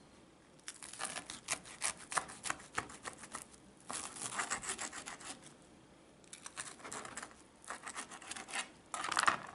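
A small kitchen knife sawing through a toasted brown-bread sandwich, the crisp crust rasping and crunching with each quick back-and-forth stroke. The strokes come in three runs with short pauses between, and a louder burst near the end.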